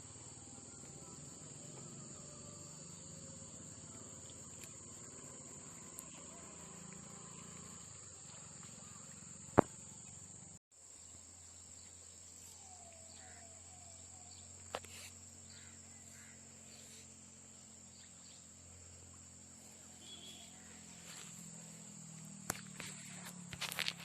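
Steady high-pitched chirring of insects, typical of crickets, with a few sharp clicks. One click a little before halfway is the loudest, and the sound cuts out for an instant just after it.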